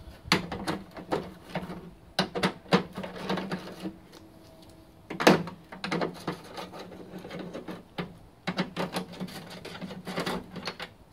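Hand ratchet wrench clicking in short quick runs as the bolts holding a window regulator are undone on a steel car door, with a few sharper metal knocks, the loudest about five seconds in.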